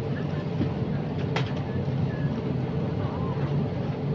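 Steady low drone of an airliner cabin after landing, with engine and air-conditioning noise. Faint passenger voices are under it, and a single click comes about a second and a half in.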